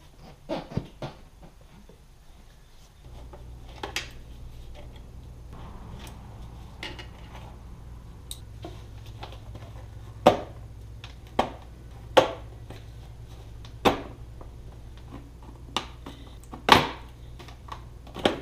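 Hard plastic motorcycle tail-section parts being handled and taken apart: scattered sharp clicks and knocks, several louder ones in the second half, over a low steady hum that starts about three seconds in.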